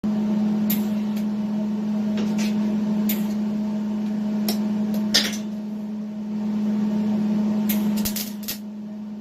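MIG welder running with a steady electrical hum, broken by scattered sharp pops from the arc, the loudest about five seconds in and several close together near the end.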